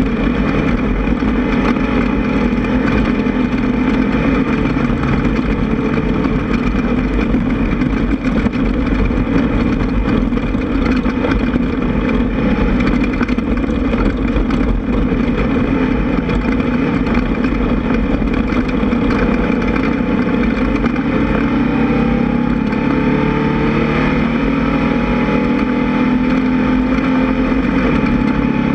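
Air-cooled 1600 cc VW flat-four engine of a Class 1600 desert race buggy running hard and loud under load. Its pitch climbs steadily over the last several seconds as it picks up revs.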